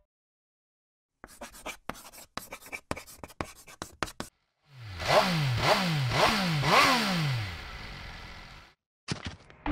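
Quick scratchy strokes like a pen or brush writing. Then a motorcycle engine, the MV Agusta Brutale 800's three-cylinder, revved in four quick throttle blips, each rising sharply then falling in pitch, before settling to a lower steady note that fades out.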